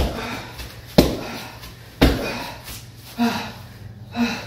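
Knee strikes thudding into a hanging heavy punching bag, three about a second apart, each trailing off as the bag swings. Then two hard, voiced breaths from the exhausted striker.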